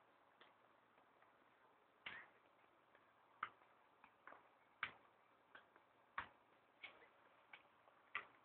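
Faint, sharp taps of a football being touched, about one a second at uneven spacing.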